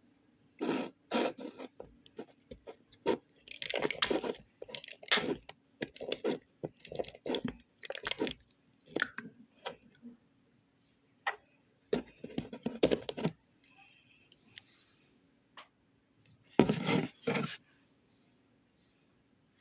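Slime being squeezed and poked by hand, giving irregular runs of short crunchy pops and clicks with brief pauses between.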